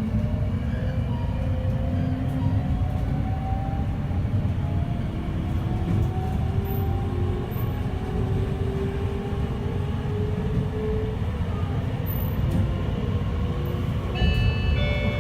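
In-car running sound of a JR East E653-1100 series express train: a constant rumble of wheels on rail under thin motor and inverter tones from its Hitachi three-level IGBT VVVF drive, slowly rising in pitch. About a second before the end, the four-tone on-board chime starts to play.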